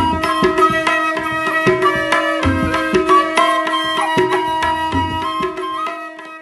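Instrumental music with a steady drum rhythm over held tones, fading out near the end.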